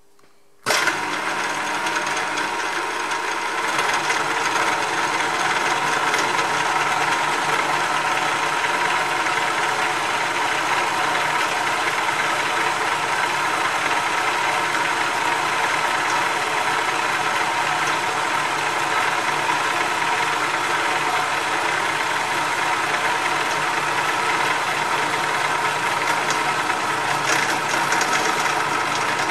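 Hare and Forbes HM48 milling machine switched on, starting suddenly less than a second in and running steadily with a large Morse-taper end mill in the spindle, growing a little louder about four seconds in.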